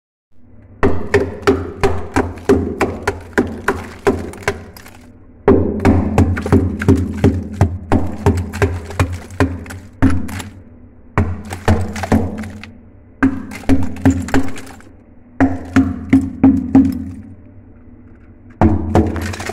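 A small hammer chipping thick frost and ice off the inside walls of a freezer. It makes rapid knocks, about three or four a second, in bursts of a few seconds with short pauses between them.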